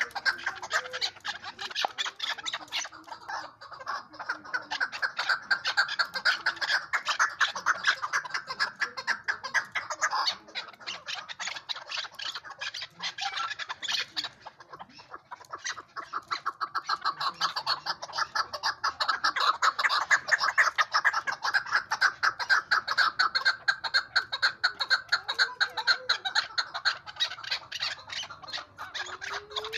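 Chukar partridge calling: long runs of rapid, repeated chuck notes, breaking off briefly about halfway through before starting up again.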